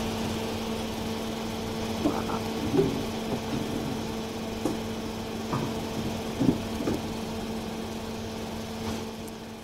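Room tone: a steady low electrical or fan hum, with a few faint brief sounds from the room now and then. The soldering itself makes no sound of its own.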